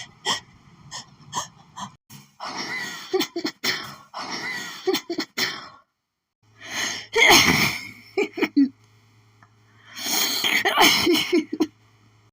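A woman's rapid, harsh, hitchy sneezing fit: a few short catching breaths in the first couple of seconds, then a run of loud sneezes in clusters, the loudest about seven seconds in. The sneezing is from a hay-fever allergy, which she puts down to flowers.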